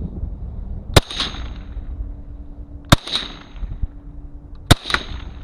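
FN PS90 carbine (5.7×28mm) fired three times in slow single shots, about two seconds apart, each sharp report followed a fraction of a second later by a fainter crack and a short ring.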